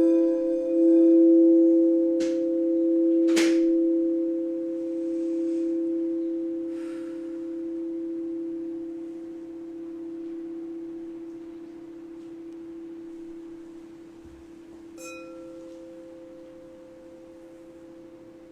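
Crystal quartz singing bowls ringing on: a low steady tone with a quieter higher tone above it, slowly dying away. Two short bright strikes come a couple of seconds in, and a light chime rings about fifteen seconds in.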